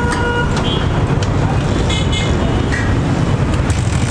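Busy road traffic: a steady rumble of engines, with short horn toots at the start and again about two seconds in.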